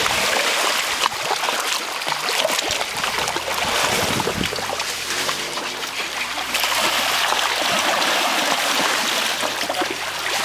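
River water rushing and splashing around a young Asian elephant lying in the shallows, with many small splashes as it rolls and moves its trunk.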